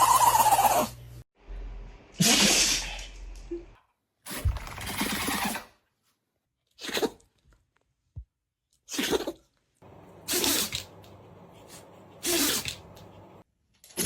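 Dogs sneezing: a string of short, sharp sneezes, about seven in all, each a second or two apart with quiet gaps between.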